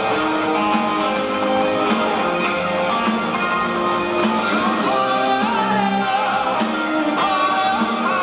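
Live rock band playing with electric guitars and a drum kit, amplified in a large arena, with a voice singing over it.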